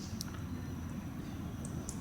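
Wood campfire burning: a steady low rumble with a few faint sharp crackles, three of them in two seconds.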